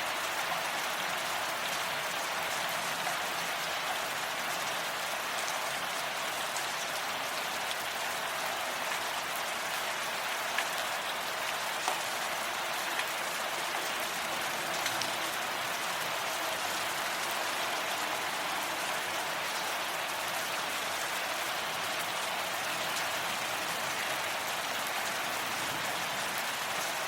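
Steady rain falling, an even hiss of drops with occasional sharper individual drop hits.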